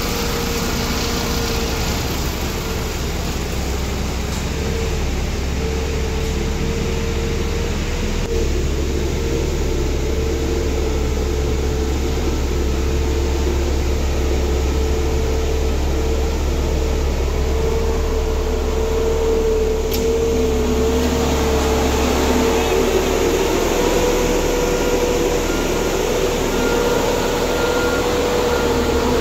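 Diesel engine of a Dynapac road roller running steadily with a constant high whine over a deep rumble, growing slightly louder as the machine comes up close.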